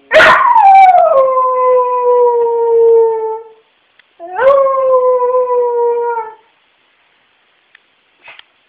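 Dog howling twice: a long howl that starts high, drops and then holds steady for about three and a half seconds, then a shorter second howl about four seconds in.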